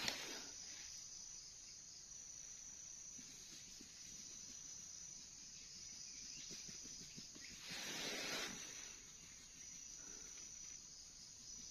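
Steady, high-pitched chorus of insects. A brief soft noise rises and falls about eight seconds in.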